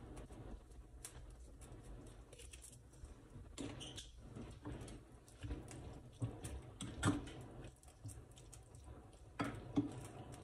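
Fingers mixing seasoned chopped shrimp and peppers in a bowl: faint wet squishing with scattered small clicks and taps, two sharper ones about seven and ten seconds in.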